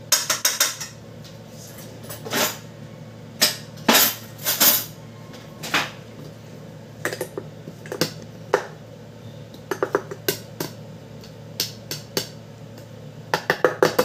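Irregular plastic clicks and knocks from a manual food chopper as its lid and bowl are handled and peeled garlic cloves are dropped in, sometimes single, sometimes in quick runs of several.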